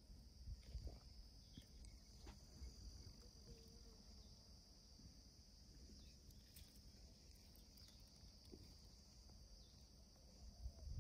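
Near silence: faint outdoor ambience with a steady high-pitched insect drone, low rumble, and a few light ticks.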